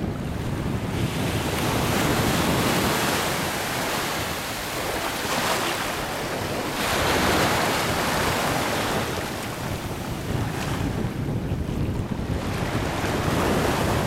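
Small sea waves washing up and breaking on a sandy beach, the surf swelling and fading several times. Wind buffets the microphone throughout with a low rumble.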